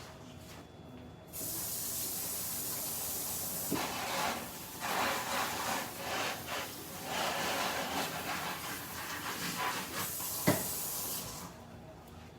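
Water running hard from a kitchen tap, splashing unevenly, turned on abruptly and shut off near the end; a single sharp knock just before it stops.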